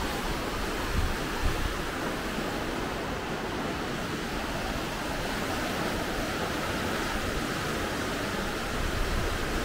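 Steady, even rushing noise of running water, with two brief low bumps about a second in.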